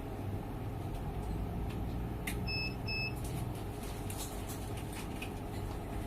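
Two short, high electronic beeps about half a second apart from a semi-auto biochemistry analyzer, over a steady low hum, with a few light clicks.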